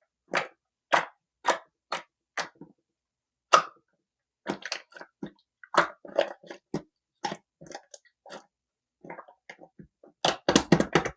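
Slime being handled and squeezed by hand, making a series of short, sharp sounds. They come about two a second at first, then irregularly, with a fast cluster near the end.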